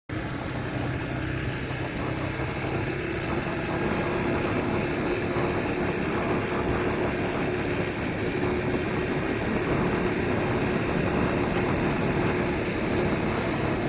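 A motor engine running steadily, a constant hum over a low rumble, with no change in speed.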